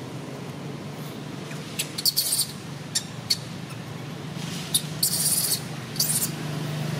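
Infant long-tailed macaque giving a string of short, shrill distress squeals at irregular intervals, the longest about five seconds in. A steady low hum runs underneath.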